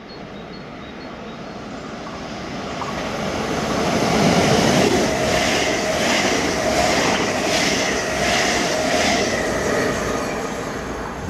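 NS yellow-and-blue double-deck passenger train passing through a station on the near track. The rumble builds over the first few seconds, then comes a regular clatter of wheels at about two beats a second over a steady whine, and it fades near the end as the last coach goes by.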